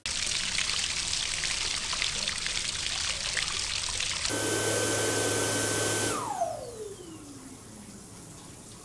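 Water running from a basin tap and splashing into the sink. About four seconds in it gives way to an electric hand dryer running with a steady high whine, which then switches off, the whine falling in pitch as the motor spins down.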